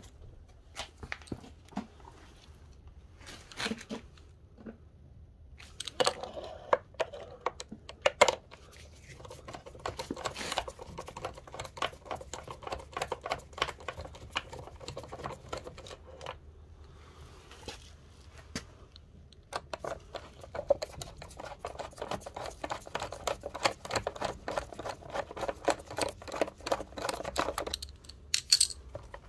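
Socket ratchet clicking in long, rapid runs as bolts are undone on a scooter's side casing, with a few sharper knocks of tool on metal in between.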